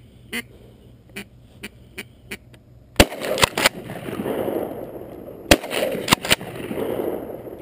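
Two loud shotgun shots about two and a half seconds apart, the first about three seconds in, each followed by ducks quacking and flushing.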